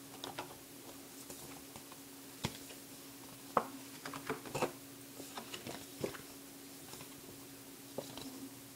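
Paper and cardboard packaging being handled: scattered soft rustles, crinkles and taps, a few sharper ones about two and a half and three and a half seconds in. A steady low electrical hum from the recording runs underneath.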